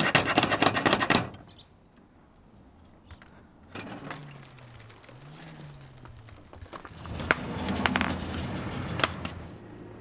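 Iron ring door knocker rattled hard against a wooden door, a fast clatter lasting about a second. About four seconds in, the door's hinges creak with a low pitch that rises and falls as it swings open, and near the end there is more metallic rattling with a few sharp clinks.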